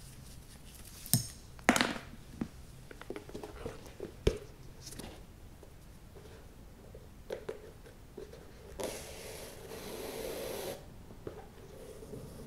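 A flat shoelace being laced into a leather Nike Dunk High sneaker, close-miked: a few sharp clicks and light taps from handling the lace and shoe, then about two seconds of rustling as the lace is drawn through an eyelet, near the end.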